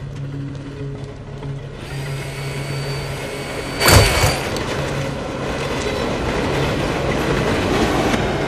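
Tense film score: a pulsing low drone with steady held tones. About four seconds in there is a loud sudden hit, and after it a dense wash of sound slowly grows louder.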